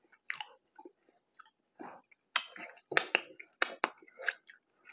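Close-up mouth sounds of a person chewing a mouthful of ground pork mac and cheese burger: wet smacks and clicks, sparse at first and coming thicker and louder from about halfway on.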